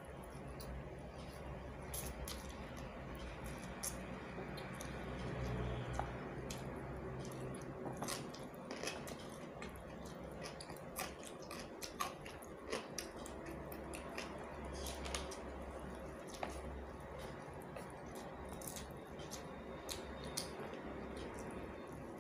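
A person eating thin egg noodles up close: wet chewing and slurping, with many short sharp mouth clicks and smacks scattered throughout.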